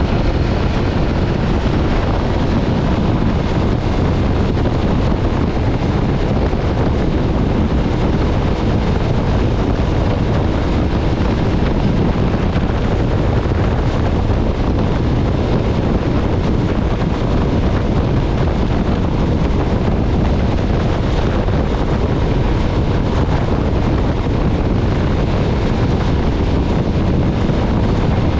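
Steady wind rush buffeting the microphone at riding speed on an MV Agusta Stradale 800 motorcycle, with the bike's three-cylinder engine running beneath it.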